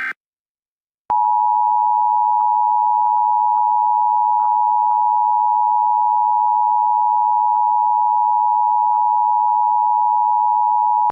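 Emergency Alert System attention signal: one steady, loud tone that starts with a click about a second in and holds unbroken for about ten seconds, announcing that the alert message is about to follow.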